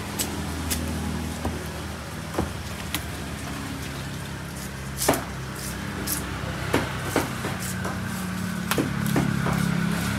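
Scattered knocks and clicks of a knife and a large milkfish being handled on a wooden chopping block, the loudest knock about five seconds in, over a steady low engine hum.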